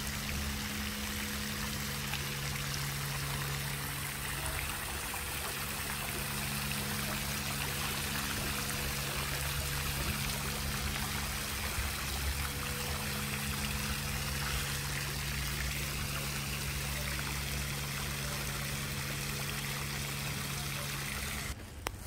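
Garden fountain splashing: jets of water falling steadily into a stone-walled pool, with a steady low hum underneath. The sound cuts off abruptly just before the end.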